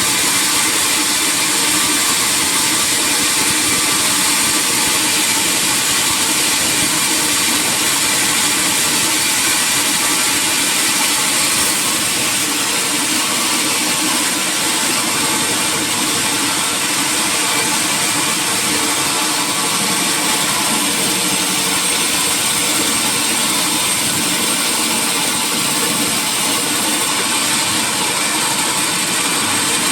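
Sawmill machinery running steadily: a continuous, even, hiss-like noise with no change in pitch or level.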